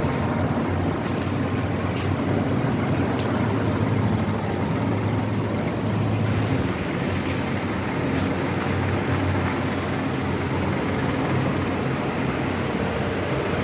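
Steady rushing background noise, strongest in the low range, with a few faint clicks.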